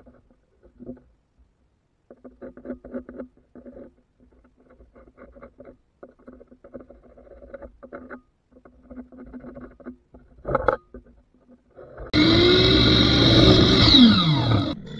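Pencil scratching in short strokes as it traces around a plane handle on a mahogany board, with a short knock about ten seconds in. Then, about twelve seconds in, a sliding miter saw starts loud and crosscuts the board, its pitch falling near the end.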